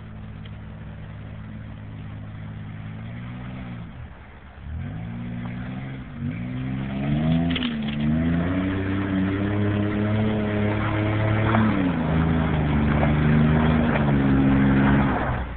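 Toyota SR5 4x4's engine revving under load as the truck climbs an off-road hill. The engine note dips briefly about four seconds in, then climbs and is held high, growing louder, before dropping away at the very end.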